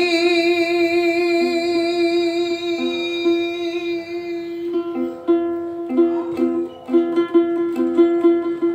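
Ukulele accompanying a man's long held sung note, which fades over the first four seconds. From about five seconds in, the ukulele plays alone: a rhythmic strummed interlude between two repeated notes.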